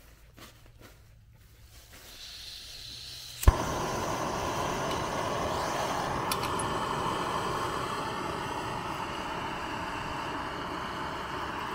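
Backpacking gas stove on a screw-on canister: gas hisses as the valve is opened, a sharp click sounds about three and a half seconds in as the burner lights, and the flame then burns loud and steady.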